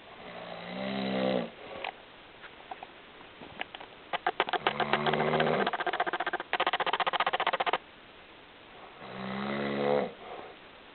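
A man snoring in his sleep: three snores, the first and last each swelling over about a second and a half, the middle one longer, about three seconds, with a fast rattling flutter.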